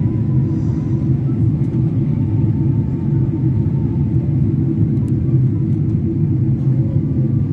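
Jet airliner cabin noise in flight, heard from a window seat: a steady low rumble of engines and airflow.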